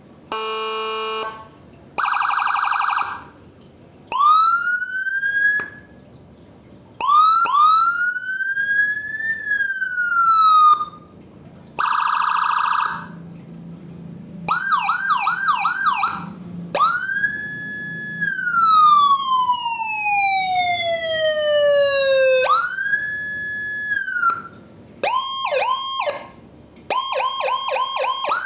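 Electronic siren with a Whelen-like sound run through its tones in turn: three short buzzy horn blasts, several slow wails that climb to a high pitch and glide back down, and fast yelp warbles, several a second, in the middle and at the end.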